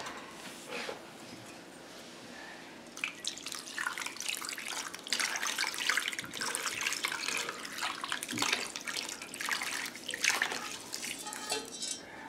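Brine poured from a glass bowl over raw pork chops in a dish: liquid splashing and trickling, starting about three seconds in and tailing off near the end.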